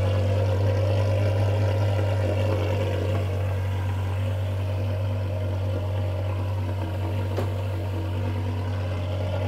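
Porsche Carrera GT's V10 idling steadily just after a cold start, warming up, through a titanium exhaust with the catalytic converters kept but no muffler, only an X-pipe. It has a deep, bassy tone.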